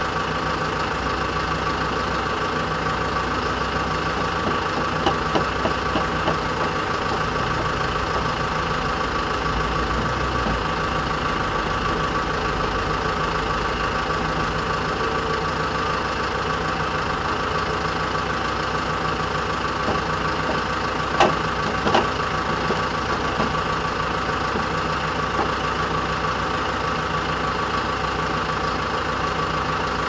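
Lift truck (forklift) engine running steadily at idle, with a steady whine over the hum. A few short knocks come about five seconds in, and two louder ones a little past two-thirds of the way through.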